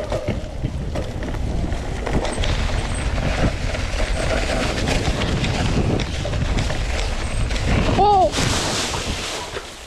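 Mountain bike riding down a dirt trail: continuous wind rush and rattling on the camera microphone. A short, high squeal comes about eight seconds in.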